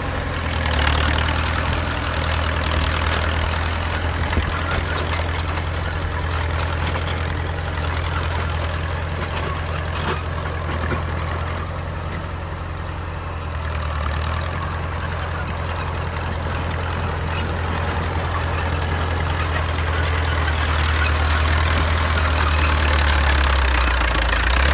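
Restored 1947 bulldozer's engine running at a steady speed with a deep, even drone, easing slightly about twelve seconds in and growing louder near the end.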